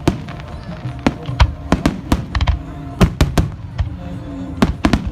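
Fireworks display: a rapid, irregular string of sharp bangs, at times several a second, with music playing underneath.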